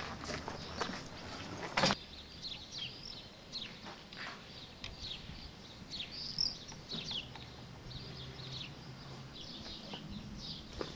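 Small birds chirping over and over, short high notes scattered all through. Footsteps and a sharp click come in the first two seconds.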